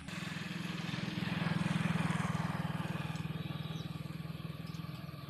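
A motor vehicle's engine running with a fast, even pulse, growing louder to a peak about two seconds in and then slowly fading.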